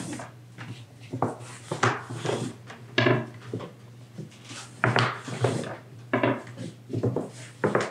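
Irregular knocks, clinks and scrapes of a spoon and dish, with handling on a wooden surface, as melted butter is spooned over thin baklava dough sheets. A steady low hum runs underneath.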